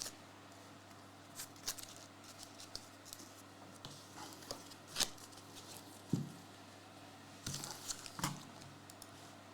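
Trading-card packs and cards being handled, faint and sporadic: crinkles and rustles of foil wrapper with scattered small clicks. The sharpest click is about halfway through, with a short cluster of rustles near the end.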